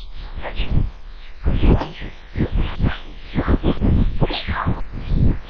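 Wind buffeting the microphone outdoors: an uneven, gusting rumble that swells and drops every fraction of a second.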